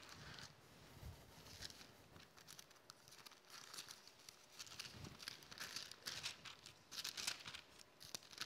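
Faint rustling of thin Bible pages being turned by hand, in short irregular bursts, as a passage is looked up.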